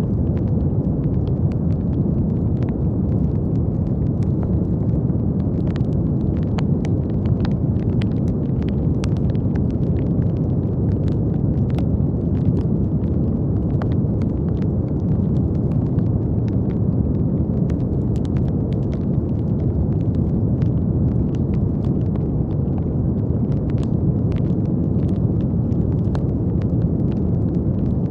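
Steady brown noise, an even hiss weighted to the low end, with faint irregular crackles and clicks scattered through it.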